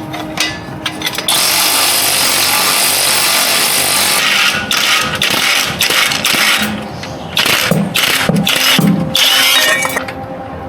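A power tool running on the car's exhaust: one continuous run of about three seconds, then a string of short on-off bursts.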